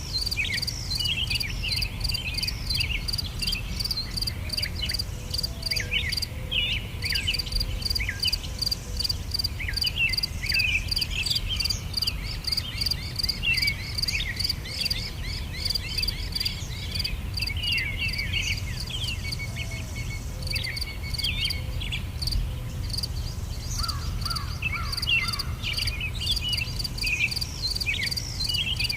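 Insects chirping in a fast, even pulsing trill, with many small birds calling in short chirps and sweeps over it, over a steady low background noise.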